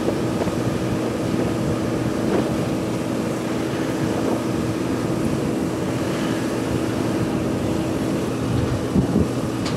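Steady drone of airport ground equipment running beside a parked aircraft, an even mechanical noise with a constant low hum, and a few short knocks near the end.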